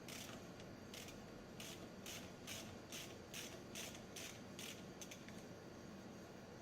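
Hand tool being worked on an automotive AC compressor clutch: faint, short scraping strokes, two single ones and then an even run of about eight at two to three a second, stopping about five seconds in.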